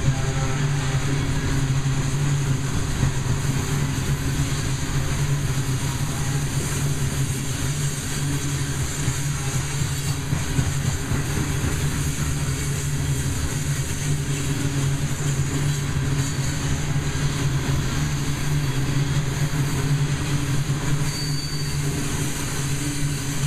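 Loaded coal hopper cars of a long freight train rolling past, wheels on rail making a steady, low, unbroken noise.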